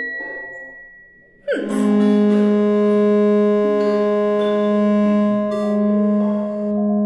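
Electronic laptop-orchestra music. A few sparse synthesized tones fade away, then about a second and a half in a quick downward swoop opens a loud sustained electronic chord over a steady low hum, held to the end.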